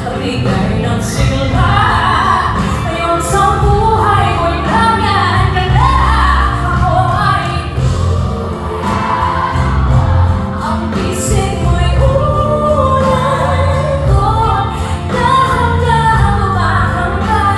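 Live pop music: a female singer sings into a microphone over band music, amplified through the venue's PA and heard from within the audience.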